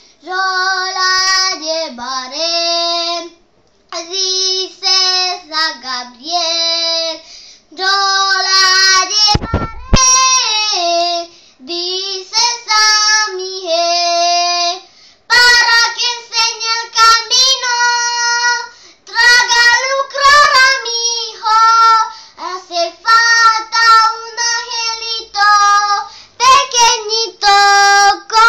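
A young girl singing a Christmas song in Spanish, unaccompanied, in short phrases with brief pauses between them. A low thump cuts in about ten seconds in.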